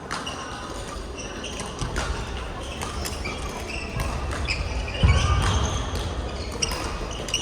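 Badminton doubles rally on an indoor court: rackets knock the shuttlecock back and forth about once a second, while shoes squeak on the floor and feet pound as the players move. A heavy thump about five seconds in is the loudest sound.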